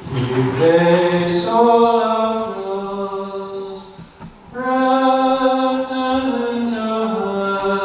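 A voice singing a slow church hymn, holding long notes that step from pitch to pitch, with a brief break about four seconds in.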